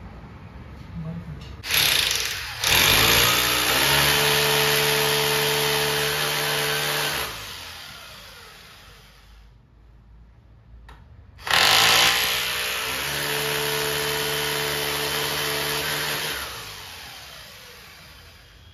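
Electric drill boring holes into the wall for the AC indoor unit's mounting plate, in two runs. The first starts with a short burst, stops briefly, then runs steadily for about five seconds and winds down. The second starts about halfway through, runs about five seconds and winds down again with a falling whine.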